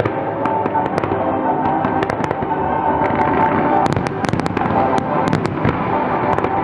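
Fireworks display: sharp cracks and bangs of bursting shells, thickest around the middle, over steady music.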